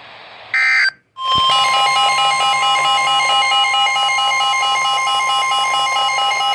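A short burst of digital data tones from a NOAA Weather Radio broadcast, then, after a brief gap, the long steady weather alert alarm tone that precedes a warning, with the receiver's own alarm beeping rapidly over it.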